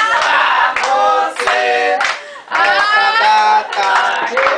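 A group of people singing a birthday song together in unison, with hand clapping along.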